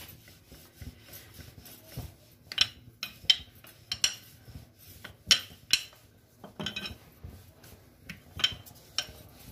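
Wooden rolling pin rolling out a thin sheet of dough on a marble worktop: soft rubbing broken by irregular sharp knocks and clicks as the pin is worked over the dough and against the stone.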